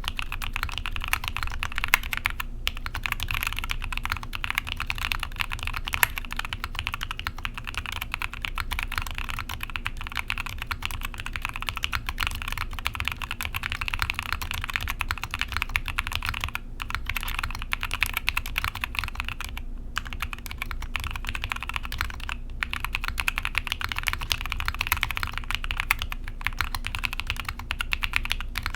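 Mechanical keyboard typed on fast and continuously: Tecsee Ice Grape linear switches in a gasket-mounted 60% board with a polycarbonate plate and foam, under GMK doubleshot ABS keycaps, giving a dense run of key presses and bottom-outs with a few brief pauses.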